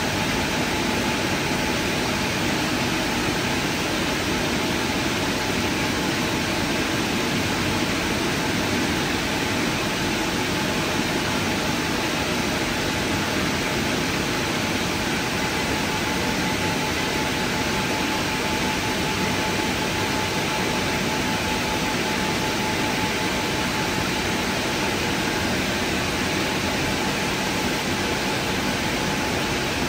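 WashTec SoftCare2Pro gantry car wash's drying blowers running: a steady rush of air with a faint steady whine, the final drying stage of the wash programme.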